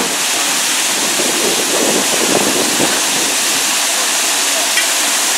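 Broken water main spraying at high pressure: a loud, steady hiss of water jetting into the air, not yet shut off.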